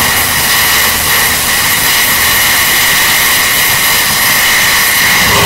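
Loud, deliberately distorted construction-site machinery noise: a steady, high whine over a dense hiss. A lower, pitched hum joins near the end.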